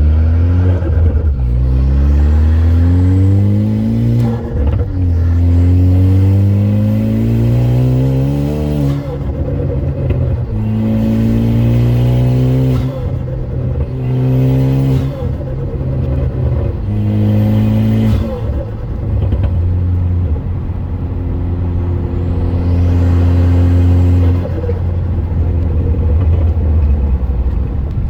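Ford Focus ST's turbocharged four-cylinder engine with a straight-piped exhaust, pulling hard through the gears: the engine note climbs and drops back at each shift several times, then holds steady before falling off near the end. Short bursts of turbo hiss and flutter come around the shifts.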